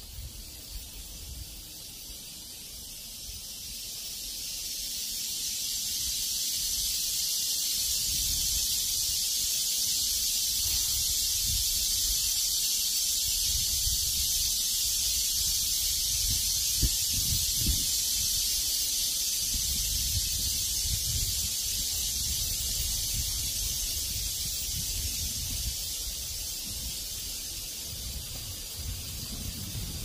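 Cicada chorus: a steady high buzzing that swells over the first several seconds and eases slightly near the end. Gusts of wind rumble low on the microphone underneath.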